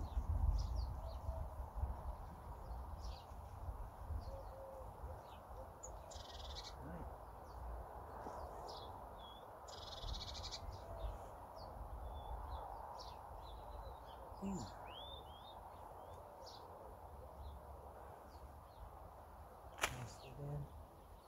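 Birds chirping and calling in short, scattered notes over a low wind rumble on the microphone, with one sharp click near the end.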